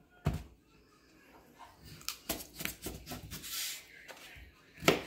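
Small paring knife cutting through raw peeled potatoes, with a soft scraping slice in the middle and several sharp knocks against a plate; the loudest knock comes near the end.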